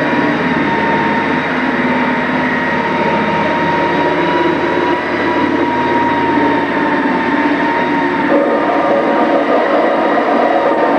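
A loud, steady machine drone with a high whine held at a constant pitch.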